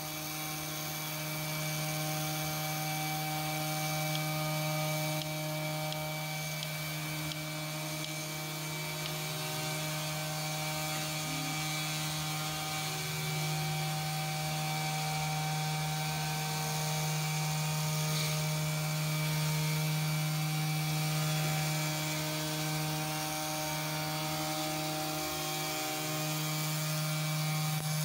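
CNC2418 router's spindle running steadily with a 0.8 mm corn-cob end mill, milling a round hole through a copper-clad fibreglass PCB blank on its second, deeper pass. There is a constant hum and whine, with fainter tones that step up and down in pitch now and then as the head moves.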